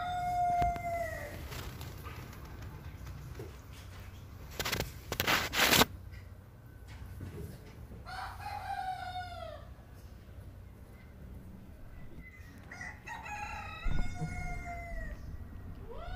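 Young kitten meowing: high, drawn-out meows that fall in pitch, about three in all. There is also a brief loud burst of noise around the middle.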